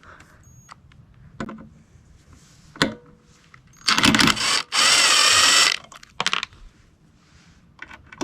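Cordless drill-driver running in two short bursts, the second a steady whine about a second long, amid scattered clicks of tools and parts being handled.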